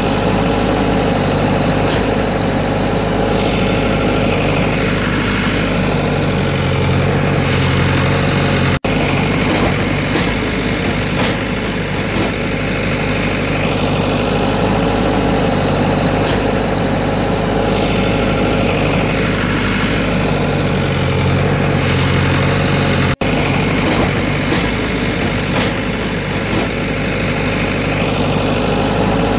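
Looped engine sound effect of heavy machinery running steadily, with rising and falling whines. The same stretch repeats about every 14 seconds, with a brief cut twice where the loop restarts.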